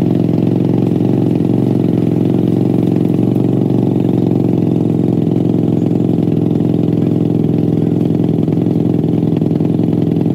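ATV engine idling steadily and loudly.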